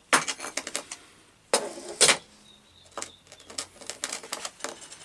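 A series of sharp clicks and knocks from objects being handled, with two louder knocks about one and a half and two seconds in.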